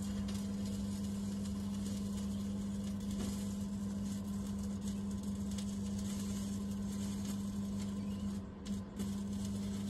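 Victron Multiplus 3000/12 inverter charger humming steadily under heavy load, about 1.7 kW drawn from a 12 V lithium battery bank by an inverter stick welder. The crackling hiss of the welding arc (2.5 mm rod at 100 A) runs with it. The hum dips briefly once near the end, when the arc breaks for a moment.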